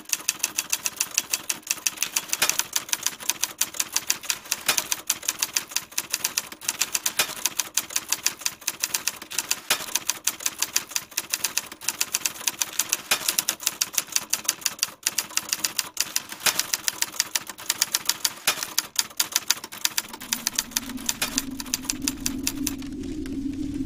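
Typewriter keys clacking in a quick, uneven run, about three or four strokes a second. Near the end the typing stops and a low steady hum fades in.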